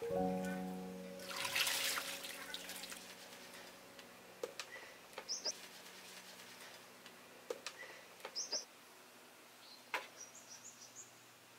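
Water poured from a scoop splashes about a second and a half in. Then small birds chirp in short, high calls a few times, with occasional light knocks.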